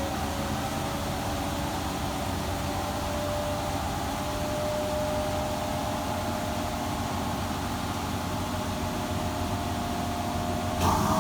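Washing machine spinning up on its spin cycle: a steady motor whine over a low hum, slowly rising in pitch as the drum gains speed. Near the end it gets louder and a higher whine joins as the machine steps up to a faster speed.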